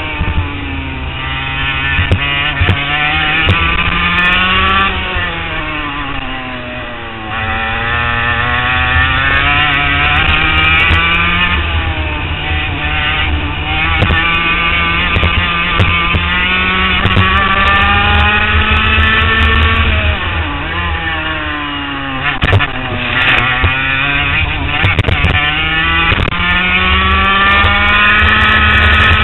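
HPV 100 racing kart's two-stroke engine, heard from onboard, revving up along the straights and dropping back for the corners, its pitch climbing and falling over and over through a lap.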